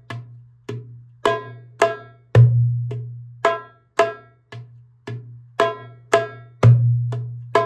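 Darbuka played slowly in cycles, single strokes about two a second: a deep ringing bass stroke about two and a half seconds in and again near the end, the strokes between them sharper and higher-pitched.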